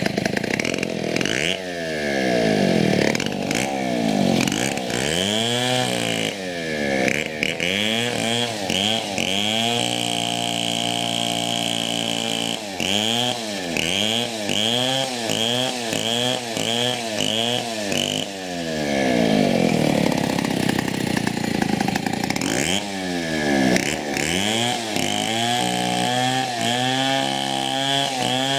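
Two-stroke chainsaw engine revving up and down again and again, its pitch swooping, with a steady stretch in the middle and an uneven, stepping run near the end. The saw is starting to cough, running rough.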